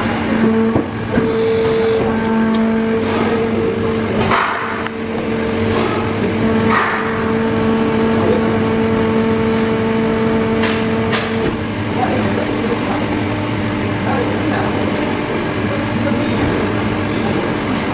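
Injection moulding machine running: a steady machine hum with a few short hisses. About two-thirds of the way through, the hum's pitch changes.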